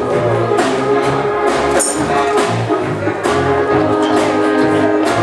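Music with held instrumental notes over a steady beat.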